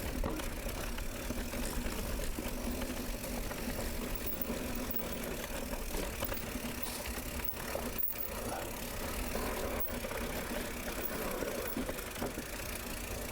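Mountain bike riding over a dirt trail: a steady rumble and rattle from the tyres and frame.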